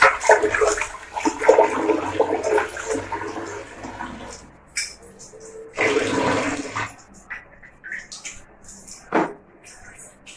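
Tap water pouring and splashing into a pressure cooker while a hand swishes raw meat pieces around to rinse them. The water sound fades after three or four seconds, a second short rush of noise comes about six seconds in, and there is a single knock near the end.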